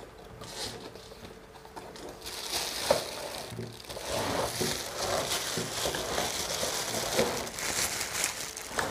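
Cardboard box and plastic wrapping rustling and crinkling as a microphone stand is pulled out of its box, with scattered small clicks. It grows louder and denser about two seconds in.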